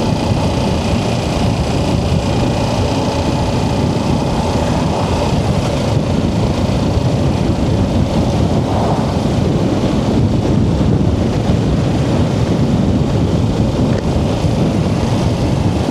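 Kawasaki Ninja 650's parallel-twin engine running steadily on the move, under a loud, even rush of noise.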